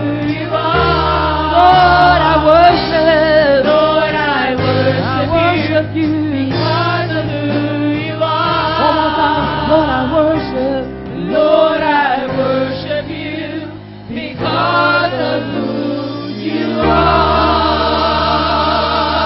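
Church praise team singing a gospel song, voices together over a backing band with a steady bass line.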